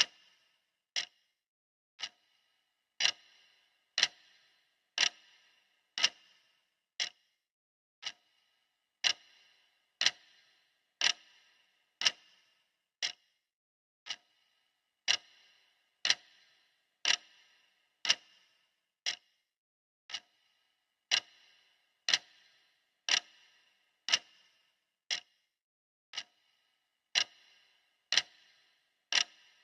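Clock ticking steadily, one tick a second, as a countdown timer's ticking sound; some ticks are louder than others.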